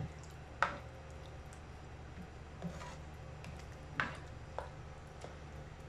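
Black plastic spoon stirring pork in coconut milk in a stainless steel pan: soft scraping with a few light knocks against the pan, the clearest about half a second in and about four seconds in, over a steady low hum.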